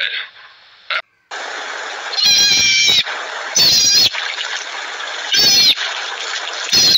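Alpine marmots calling: four short, high-pitched squeaky calls about a second and a half apart, over a steady hiss.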